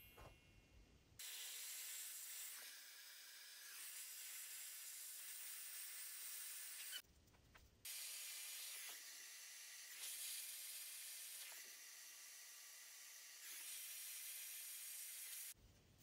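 Dyson Supersonic hair dryer blowing: a steady airy hiss of rushing air with faint high, steady motor tones. It starts about a second in, cuts out briefly about seven seconds in, then runs again until just before the end.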